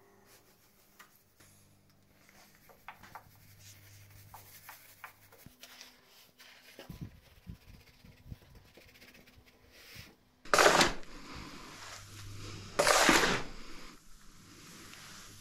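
Shovel scraping across the floor through a pile of wood chip and coffee grounds, two loud strokes about two and a half seconds apart near the end. Before that, faint rustling and small clicks over a low hum.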